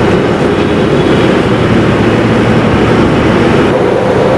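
Fire tender's engine and pump running with a steady, loud drone, driving a hose jet spraying disinfectant.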